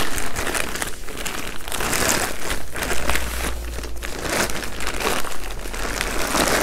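Plastic potato grow sack crinkling and rustling irregularly as hands grip it and roll it down.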